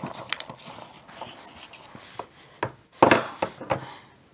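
Small plastic toy figurines knocking and scraping against a tabletop and a paper river strip as a hand moves them, in scattered light taps with a louder knock and rub about three seconds in.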